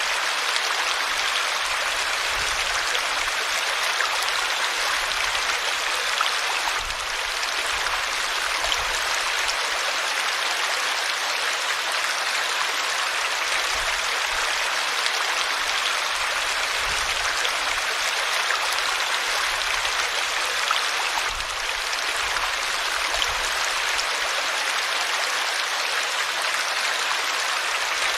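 River water flowing, a steady rushing noise with no let-up.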